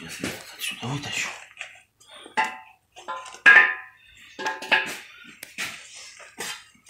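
A series of ringing metal clanks and knocks as a cylinder liner is worked loose and lifted out of a WD615 diesel engine block. The loudest clank is about halfway through.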